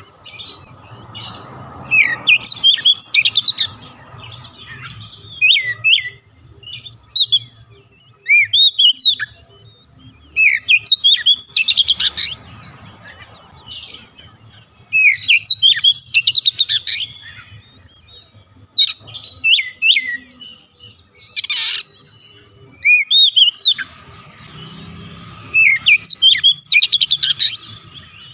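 Oriental magpie-robin singing in full song: loud phrases of rapid chattering trills and sweeping whistled notes, each a second or two long, coming every few seconds with short pauses between.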